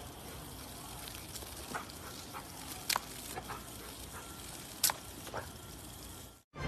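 Thin stream of water pattering steadily onto grass, with a few faint clicks.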